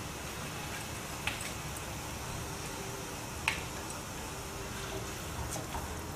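Soaked basmati rice and water poured and scraped from a glass bowl into a pot of mutton stock with a silicone spatula: a low, steady wet rustle with two light clicks.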